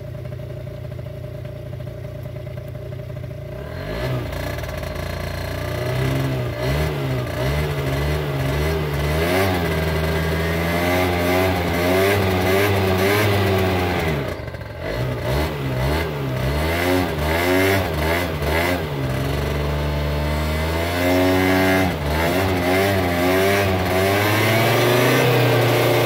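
Year-2000 Derbi Atlantis 50 scooter's 50cc two-stroke engine, through its standard exhaust, idling for a few seconds, then revved over and over with the rear wheel spinning free on the centre stand. The revs rise and fall repeatedly, drop briefly a little past halfway, and climb again near the end.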